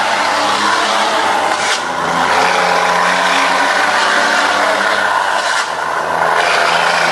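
A vehicle's engine running under way, with road noise. The sound dips briefly twice, about two seconds in and again near five and a half seconds, like gear changes.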